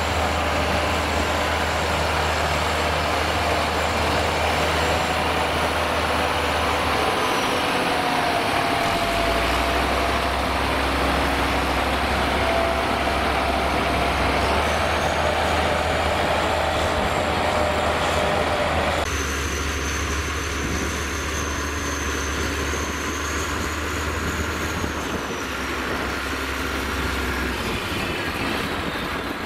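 Diesel engine of a loaded Scania P440 6x6 dump truck running under load as the truck crawls through mud: a steady low drone that breaks and changes pitch about eight seconds in, with thin whines gliding above it. It drops a little in level about two-thirds of the way through.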